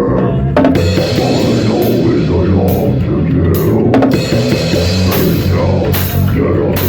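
Rock band playing loud: a drum kit with frequent cymbal crashes over sustained guitar chords.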